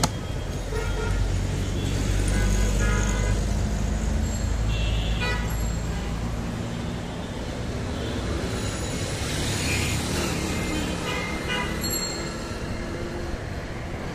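Street traffic: a motor vehicle's engine rumbles close by through the first half, and short horn toots sound several times over the steady road noise.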